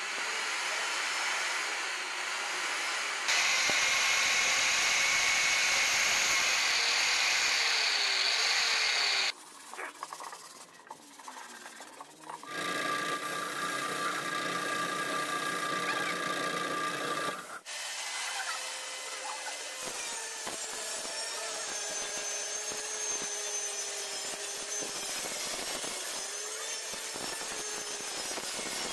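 A run of short power-tool clips on plywood: an electric hand drill boring into small plywood speaker boxes, a steady machine sound with a spray gun in use around the middle, then a table saw running near the end.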